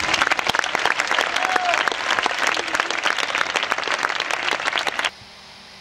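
Crowd applauding: dense, sustained hand-clapping that cuts off abruptly about five seconds in.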